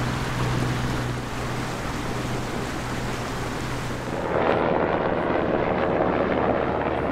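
Steady rushing wind and water noise with a low hum, under way on a sailboat. About four seconds in, a helicopter flying overhead takes over, its rotor noise louder and denser.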